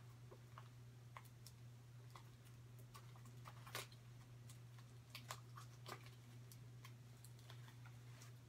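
Faint, scattered clicks and scrapes as a taped cardboard box is cut open with a scalpel, over a steady low hum.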